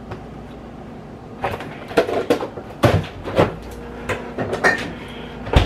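Refrigerator door opened and things handled inside it, a string of knocks and clicks, ending in one loud thump near the end as the door shuts.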